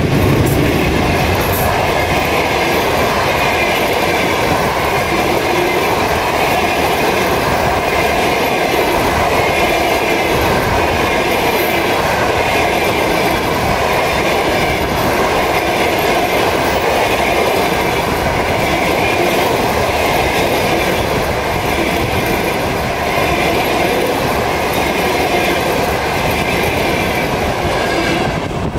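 A passenger train hauled by a 2TE10Ut diesel locomotive passes close by at speed, first the locomotive's rear section and then a long line of coaches. The sound is a loud, steady rush with the clickety-clack of wheels over the rail joints, and it drops off near the end.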